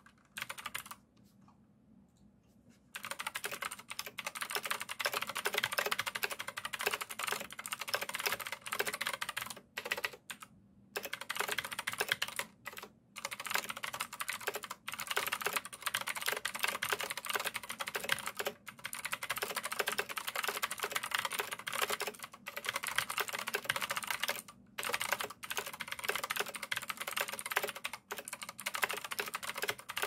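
Keychron C1 tenkeyless hot-swappable mechanical keyboard being typed on fast and continuously, keys clacking, starting about three seconds in with a few brief pauses.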